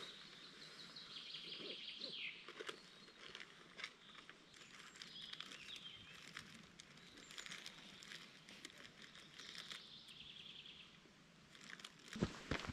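Small songbirds singing in spruce forest. Two rapid trilling songs, the first near the start ending in a falling flourish, the second near the end, over faint outdoor background with scattered light clicks and a few low thumps at the very end.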